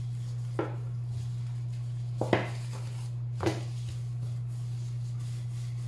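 Wooden rolling pin rolling out pizza dough on a stone counter, with three light knocks of the pin on the counter, over a steady low hum.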